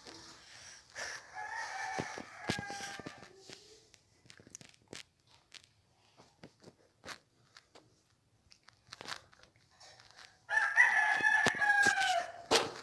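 A rooster crowing twice: a fainter crow about a second in and a louder one near the end, each about two seconds long and dropping in pitch as it ends. Scattered clicks and rustling come in between.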